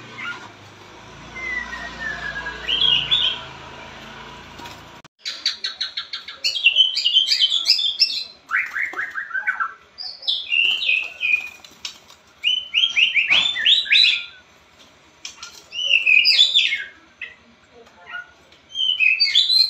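White-rumped shama (murai batu) singing. A few faint whistled notes over background hiss, then from about five seconds in a run of varied song phrases: rapid note series, falling trills and sharp whistles in bursts a second or two apart.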